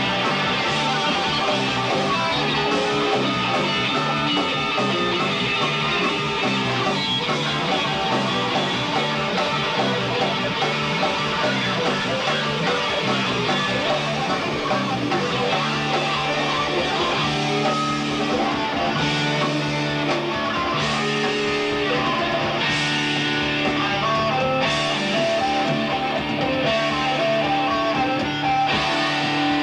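A live rock band plays with electric guitars and drums, loud and steady throughout. From about halfway through, held low notes come in along with repeated cymbal crashes.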